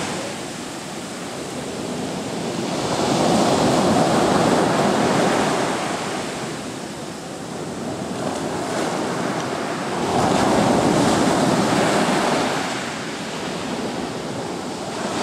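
Sea waves breaking and washing up a beach, swelling loud twice and falling back between as each wave comes in and drains away.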